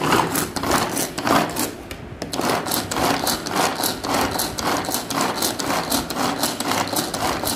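Butterfly manual pull-cord vegetable chopper being pulled again and again in quick succession, its blades whirring and clattering as they cut halved onions finely in the plastic bowl.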